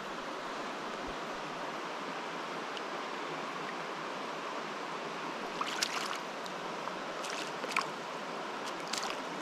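Steady rush of the river's rocky pocket water flowing past. A few short splashy ticks come in the second half as the netted trout is handled in the water.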